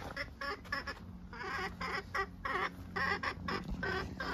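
Hens in a coop clucking and squawking in a run of short calls, about three or four a second, over a steady low hum.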